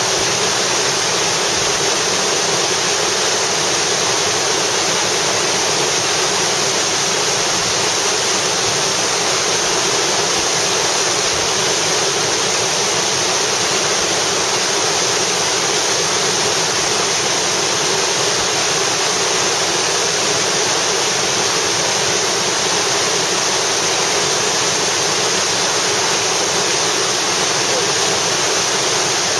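Whitewater rapid: churning river water rushing loudly and steadily, with no breaks.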